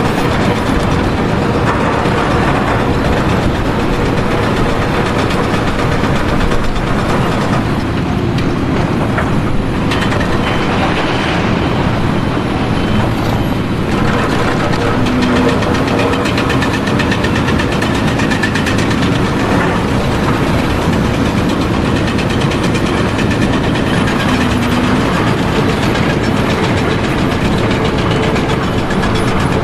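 A large engine running steadily: a loud, continuous mechanical noise that holds the same level throughout.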